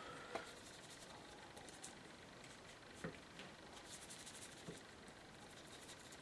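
Faint rubbing of a paintbrush scrubbing watercolour paint in a palette tray, with a few soft knocks.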